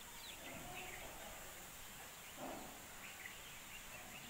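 Quiet rural ambience with small birds chirping now and then over a faint steady hiss, and a brief lower animal call about halfway through.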